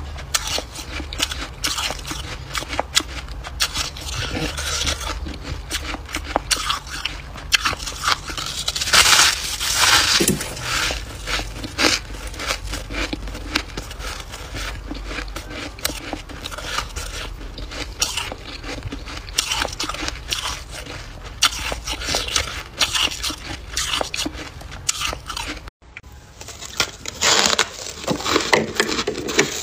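Biting and chewing fluffy freezer frost close to the microphone: dense, crisp crunching and crackling that keeps going with each bite, loudest near the middle, with a brief break near the end before the crunching resumes.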